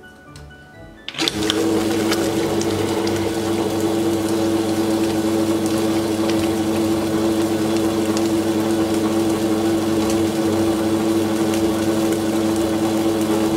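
Tabletop wet grinder switched on about a second in, then running steadily with a loud, even hum as its stone rollers turn in the drum, grinding soaked rice with water into idli batter.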